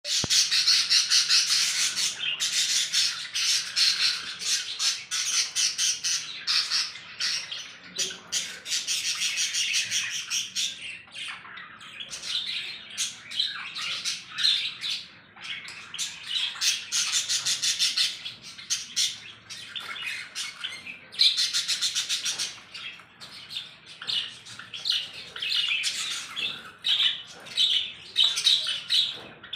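A group of small birds chattering, chirping and squawking continuously, many rapid overlapping calls, with louder spells of chatter every few seconds.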